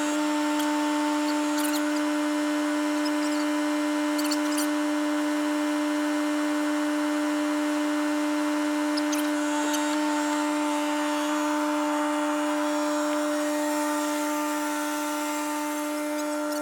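A small motor running with a steady whine at one constant pitch.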